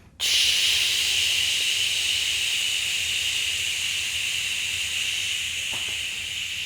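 A steady hiss of escaping air or gas that starts suddenly and slowly fades.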